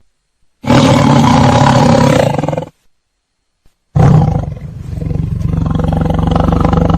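Lion roaring: one deep roar of about two seconds, a pause of just over a second, then a second, longer roar starting about four seconds in.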